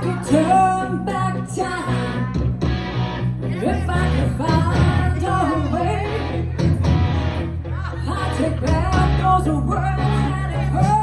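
Live band music: a singer's voice over guitar and a steady bass line.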